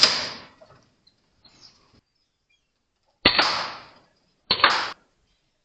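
Three shots from an FX Crown PCP air rifle, each a sharp crack with a short ringing tail: one at the start, one about three seconds later, and another about a second after that.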